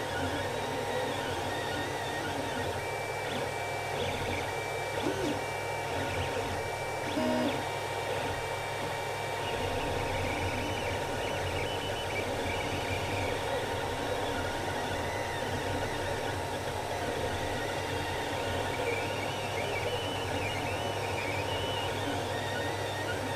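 Creality CR-10 3D printer printing: stepper motors whine in short tones that keep shifting pitch as the head moves, over the steady whir of the hotend's cooling fans.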